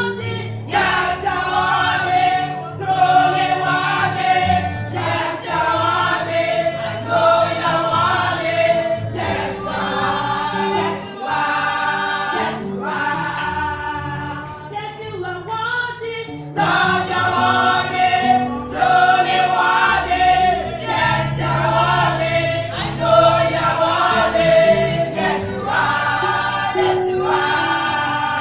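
A choir singing a gospel song, in phrases over a steady low accompaniment.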